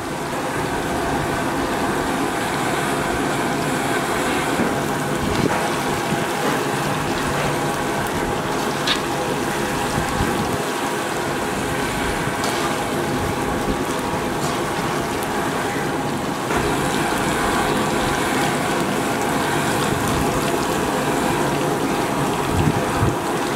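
Hot oil sizzling steadily as battered chicken pakoras deep-fry in a wok, with a few sharp clicks along the way.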